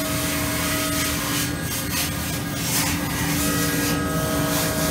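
Doosan VC400 vertical machining center's CAT 40 spindle running at 2,000 rpm: a steady machine whine made of several held tones, with a rough rushing noise that swells and fades a few times.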